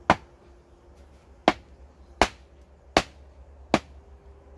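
Hammer blows on a wooden euro pallet, knocking its blocks and slats apart: a steady series of sharp wooden knocks, about one every three-quarters of a second.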